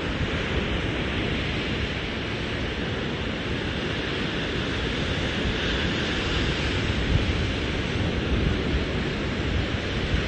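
Surf breaking on a sandy beach, a steady wash of noise without separate crashes, with wind buffeting the microphone and adding a flickering low rumble.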